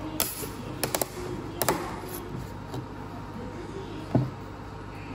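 Sharp clicks and knocks: a single click, then two quick double clicks, and a duller thump near the end, over a steady low hum.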